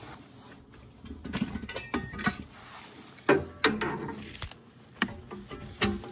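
Hand tool clicking, scraping and knocking against the valve union and copper pipe under a hot-water radiator: about seven sharp, irregular metal knocks.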